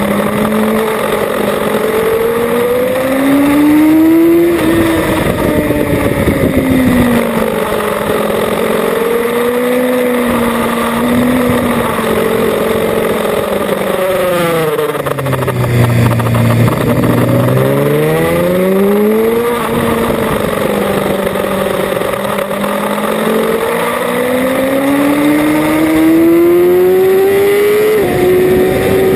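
Sport motorcycle engine at racing speed, its note climbing in repeated runs and dropping back at each gear change. About halfway through it falls to its lowest on the overrun as the bike slows, then climbs again through the gears, with a steady rush of air throughout.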